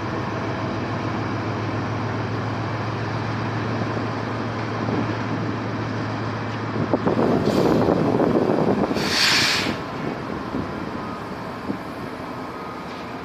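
A Pakistan Railways passenger train pulling out. The diesel locomotive's engine drones steadily at first. About seven seconds in, the rumble and clatter of the passing coaches grows louder, with a short hiss about nine seconds in, then it settles to a quieter rolling noise.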